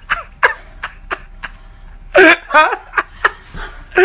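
A woman laughing in short, sharp, breathy bursts, with one louder, higher laugh about two seconds in.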